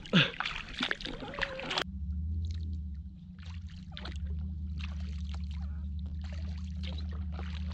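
Kayak paddle strokes splashing and dripping water for the first couple of seconds. After a sharp cut, a steady low rumble with faint trickling and lapping water as the kayak glides downstream.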